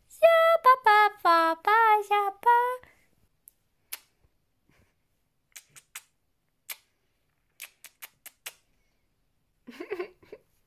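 A woman singing a short tune in a high voice for the first few seconds, then a few faint clicks and a brief low voice-like sound near the end.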